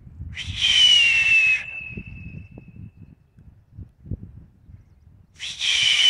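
Hawk-like scream: a hoarse cry falling in pitch, about a second long with a fading tail, heard twice about five seconds apart.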